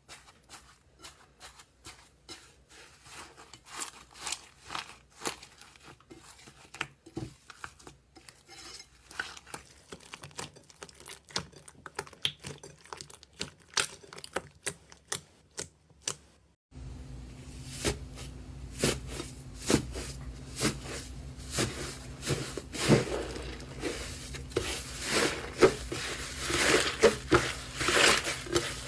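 Slime being handled and squeezed, making a dense run of small crackles and pops. About seventeen seconds in, a steady low hum comes in and the crackling grows louder.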